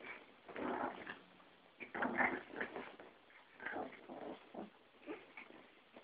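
A Yorkie and a Pomeranian play-fighting: about five short bursts of dog vocal noise with brief pauses between them.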